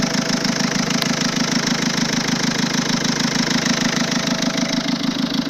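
Peugeot 207's 1.6 HDi four-cylinder turbodiesel running steadily with a loud, rapid, even clatter. The owner calls it a big noise and cannot tell where it comes from.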